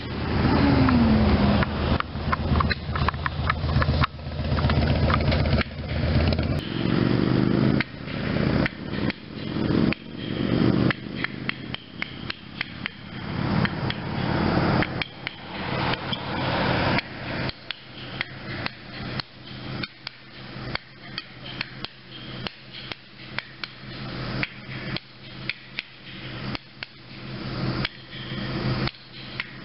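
Repeated, irregular sharp knocks and clicks over the steady hum of an idling vehicle engine. The hum is stronger in the first half. A vehicle passes on the road near the start and again around a quarter of the way in.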